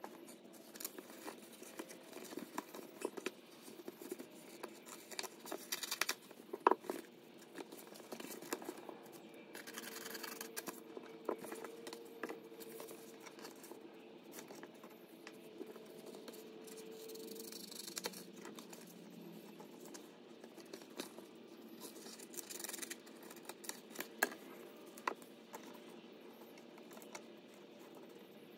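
Faint, irregular clicks and scratching, with small knocks scattered throughout and the loudest click about seven seconds in.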